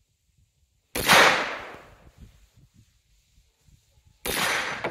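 Two shots from an M1 carbine firing .30 Carbine rounds, a little over three seconds apart, each a sharp crack with a tail that rings away over about a second; the first is the louder.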